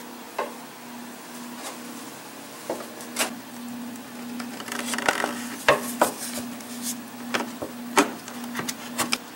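A pry bar working a VW Jetta's plastic engine cover loose from its rubber grommets: scattered clicks and knocks of metal against plastic, the sharpest near the end, over a steady low hum.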